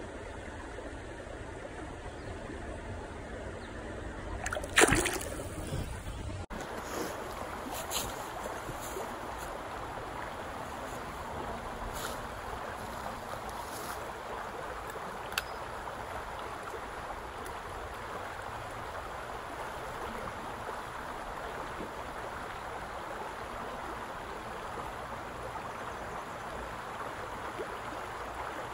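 A shallow forest stream running steadily over riffles. About five seconds in, a single loud splash, the loudest moment, where a hand holds a small brook trout in the water.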